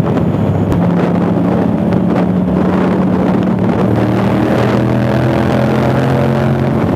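Yamaha MT-07's parallel-twin engine running through an Akrapovic exhaust while riding, heard from the helmet. The engine note holds steady, then shifts about four seconds in as the revs change.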